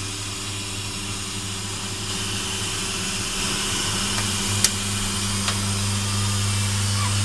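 Automatic stainless steel sink seam welding machine running as its torch travels along the bowl seam: a steady electrical hum under an even high hiss. A couple of sharp clicks come about halfway through.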